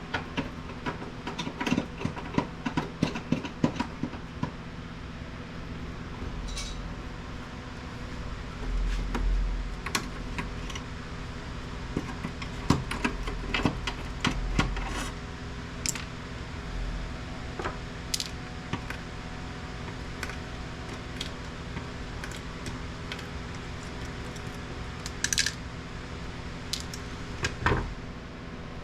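Clicks, taps and metallic clinks of a screwdriver and loose screws as a plastic printer housing is taken apart, with a few dull knocks of the casing being handled, over a steady low hum.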